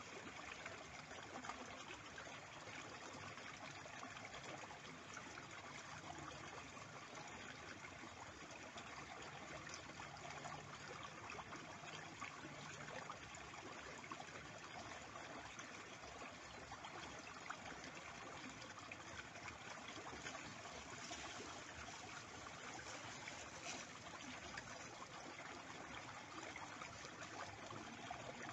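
Small, shallow stream flowing and trickling steadily.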